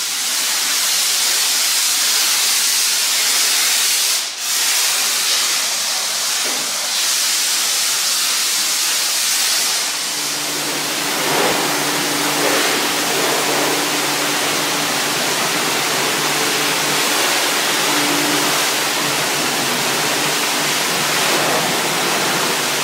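High-pressure car-wash lance spraying water onto a car's body: a loud, steady hiss that breaks off briefly about four seconds in. A steady low hum joins about ten seconds in.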